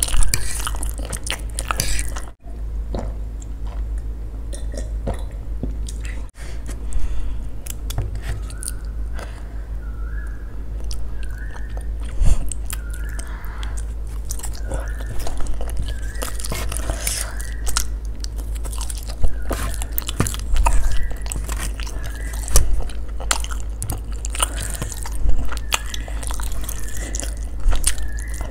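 Close-miked chewing and biting of Korean spicy instant noodles: wet mouth sounds with frequent small clicks as mouthfuls are taken and chewed.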